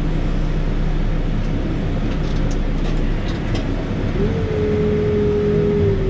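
Backhoe's diesel engine running steadily, heard from inside the cab, with a few light clicks around the middle. About four seconds in, a steady whine starts and holds.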